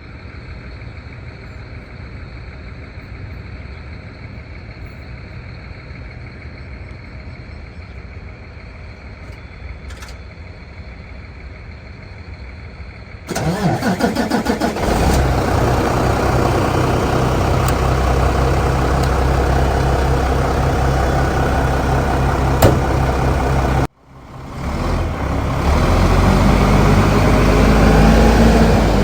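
A diesel engine idling with a low, steady rumble. About 13 seconds in, an engine starts and revs briefly, then runs steadily and much louder. After a brief break it is heard running loud again near the end.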